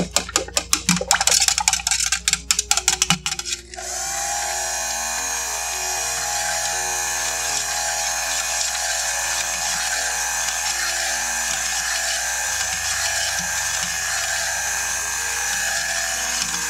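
Hand-held stick blender in a stainless steel pot of soap oils and lye solution. It starts with a rapid run of clattering knocks for about three seconds, then runs steadily with a whirring whine, emulsifying the soap batter. Soft background music underneath.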